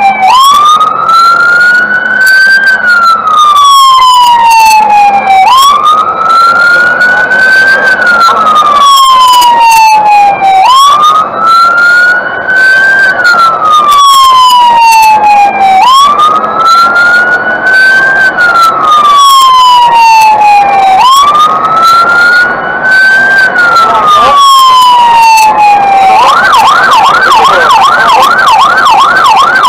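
Fire engine siren, very loud: a slow wail that jumps up and then falls away, repeating about every five seconds. Near the end it switches to a fast yelp of a few sweeps a second.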